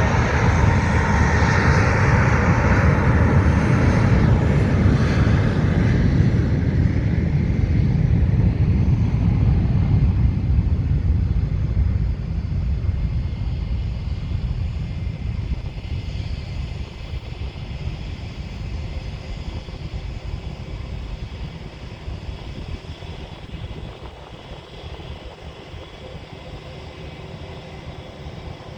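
Airplane taking off: loud engine noise with a deep rumble for the first ten seconds or so, then fading steadily as it climbs away.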